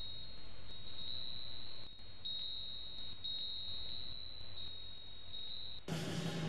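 A steady high-pitched electronic tone, like a long held beep, over a low hum. About six seconds in it cuts off and drums and percussion start.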